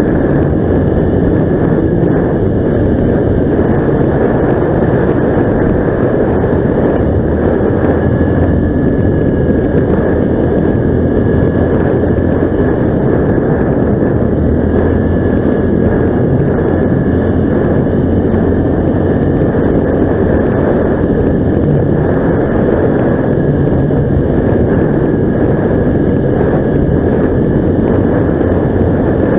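A vehicle running steadily while travelling, its engine and road noise constant and loud, with a thin steady high whine above it.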